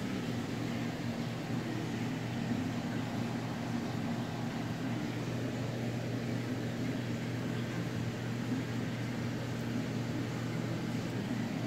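Aquarium equipment running: a steady low electrical hum under an even hiss that does not change.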